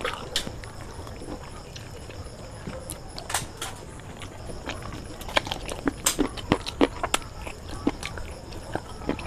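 Close-miked eating sounds from a mukbang: fingers working through biryani, then wet chewing and lip-smacking clicks as chicken is bitten and eaten. The clicks come faster and louder in the second half.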